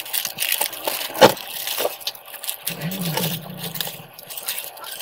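Stiff copper winding wire and pliers clicking, scraping and rattling as the winding is pulled off a toroidal transformer core, with a sharp click about a second in. A low hum swells and fades in the middle.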